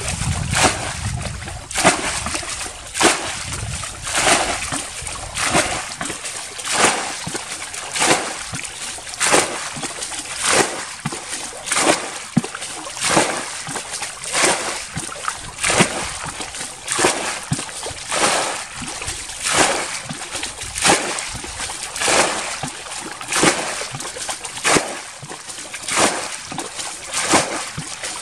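A bucket bailing muddy water out of a shallow ditch: water scooped and thrown out in a steady rhythm, one splash a little more often than once a second.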